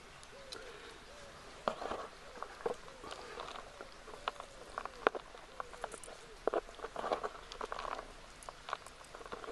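A method feeder being pressed and packed into damp, crumbly groundbait by hand, giving an irregular gritty crackle of granules with sharp little clicks as the metal feeder scrapes the plastic tray.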